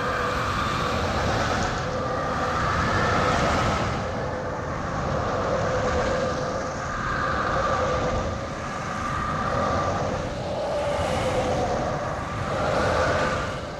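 Tornado sound effect: a continuous roar of wind with howling tones that swell and fade every few seconds.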